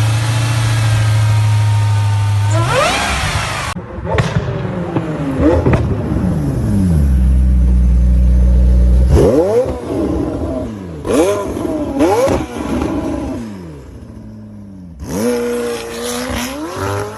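A series of separate recordings of high-performance car engines revving: a held high rev that climbs and cuts off, a rev falling back to a low steady drone, several quick throttle blips in a row, then another engine revving up.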